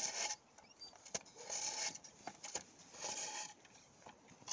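Ride-on toy excavator bucket scraping into packed snow in three short strokes, about a second and a half apart, with a few sharp clicks from the digger arm in between.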